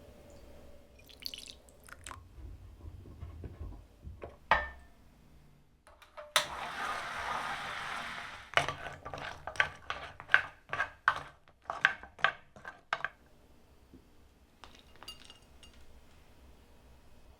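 Cooking sounds from a pan and dishes: a hiss lasting about two seconds near the middle, then a quick run of a dozen or so clinks of a utensil against a pan or dish. A few softer knocks come before the hiss, and faint ticks near the end.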